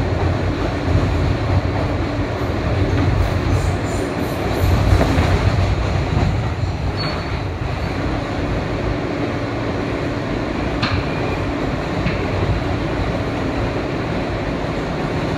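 New York City N subway train running on the elevated track, heard from inside the car: a steady rumble of wheels on rail, with two short clicks in the second half.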